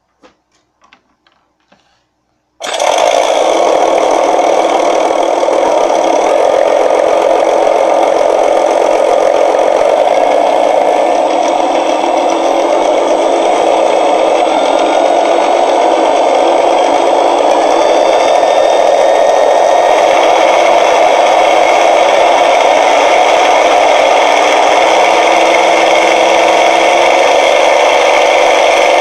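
Sense Hobby ESS-Air sound unit in a model Spitfire Mk XIV playing a simulated aircraft piston engine through its speaker. The engine sound starts abruptly about two and a half seconds in and runs steadily, with slight changes in pitch in the last third. A few faint clicks come before it starts.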